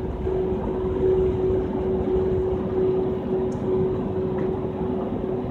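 Steady road and engine noise inside a work truck's cab at highway speed, with a constant low hum.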